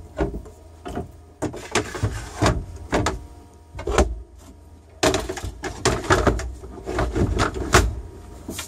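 Companionway hatch boards of a Siren 17 sailboat being dropped into their new hatch slides: a run of knocks, bumps and scrapes, busiest in the second half, as the boards slide down and seat in place.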